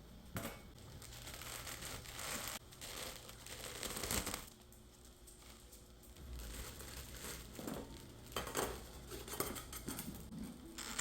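Packaging being handled, crinkling in irregular bursts.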